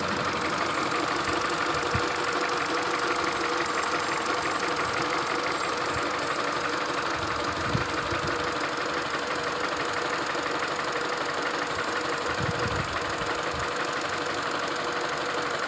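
Peugeot 207 SW engine idling steadily with a fast, light ticking over the running note and a few dull knocks now and then: the abnormal engine noise the owner is presenting.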